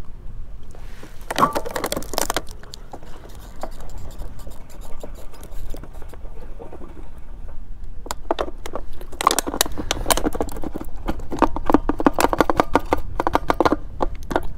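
Thin plastic bottles crinkling, clicking and scraping in the hands and against a KTM Duke 390's fuel filler neck as petrol is poured into the tank. There is a short bout about a second in and a longer, busier one from about eight seconds on, over wind rumble on the microphone.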